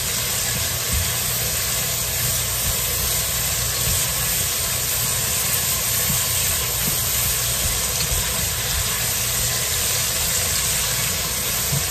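Chopped onion and banana peppers sizzling steadily in a hot pot as they are stirred and sweated.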